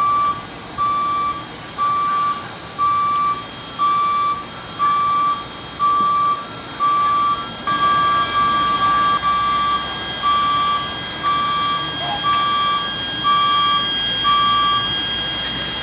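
Electronic warning beeper sounding a steady, high-pitched beep about once a second as the rail train moves, stopping near the end.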